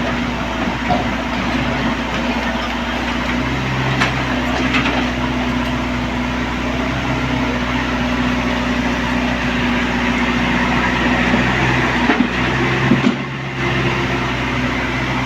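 Mini excavator's diesel engine running steadily while it works, its note shifting in strength, with a couple of sharp knocks about four seconds in and a brief drop in level near the end.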